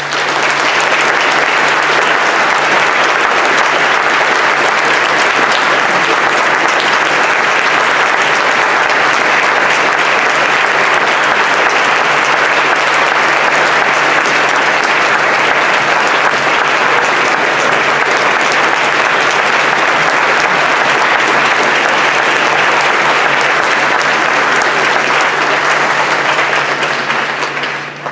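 Audience applauding at the end of a concert band piece, starting suddenly and dying away near the end.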